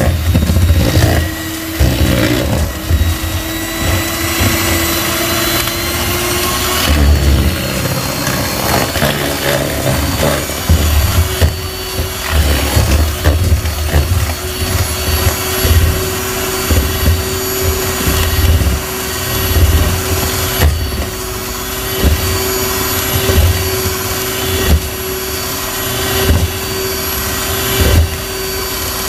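Electric hand mixer running steadily, its two wire beaters creaming butter and sugar in a plastic bowl, with irregular low thumps throughout. Its motor tone shifts about seven seconds in, then holds steady.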